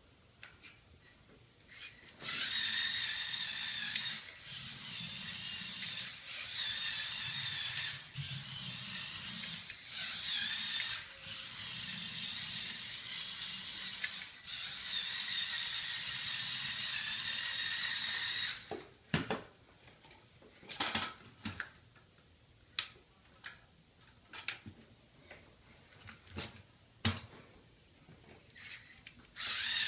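Lego Technic XL motor driving an RC car's plastic gear train: a high, steady whine that stops and restarts several times over about sixteen seconds. It then gives way to scattered plastic clicks and knocks with short bursts of the motor.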